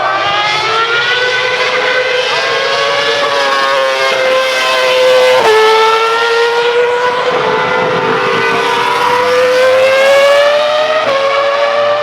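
High-revving supercar engine under hard acceleration, its note climbing steadily through each gear. It is cut by quick upshifts about five and a half seconds in and again near the end, and each time the pitch drops and starts climbing again.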